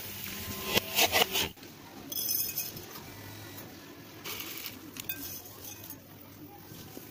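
Metal spatula clinking and scraping against a wok during stir-frying. The sound cuts off abruptly about a second and a half in, followed by a few fainter clinks.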